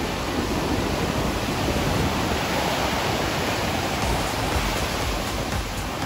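Atlantic surf breaking and washing ashore, a steady rushing noise that swells slightly in the middle, with wind buffeting the microphone.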